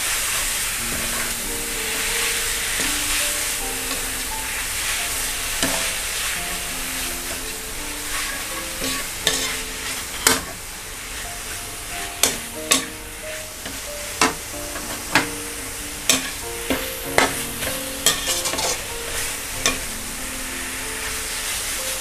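Minced meat sizzling in hot oil as it is stir-fried until it firms up. From about halfway on, the spatula knocks sharply against the pan every second or so.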